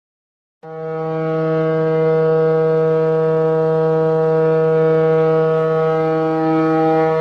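Ship's horn sounding one long, loud blast. It starts sharply about half a second in and holds a single deep note without wavering.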